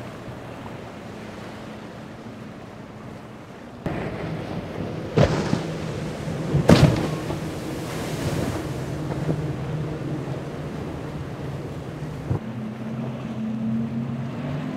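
Motorboat engines running at speed through rough inlet water, with wind on the microphone and the rush of water and spray. The sound gets louder about four seconds in, with two loud splashes of spray as a hull hits waves, about five and seven seconds in.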